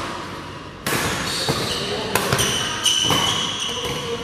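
Badminton rally on an indoor court: rackets strike the shuttlecock in several sharp hits, starting about a second in, while shoes squeak briefly on the court floor.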